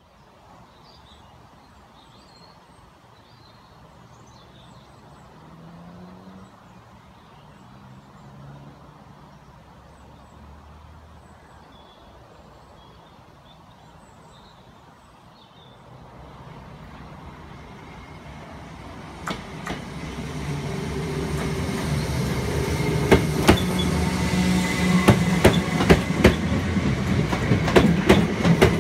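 South West Trains class 456 electric train approaching and running past, growing louder over the second half, its wheels clicking sharply over rail joints and points, with a thin high whine near the end. Before it nears, faint birdsong over a low rumble.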